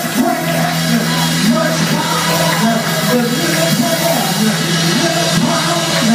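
Church worship music: voices singing over instruments, with a steady low note held underneath.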